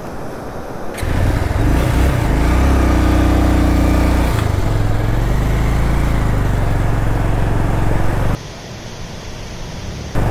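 Motorcycle engine running as the bike rides into a shallow, rocky stream crossing, its pitch rising and falling with the throttle. The sound drops away sharply about eight seconds in.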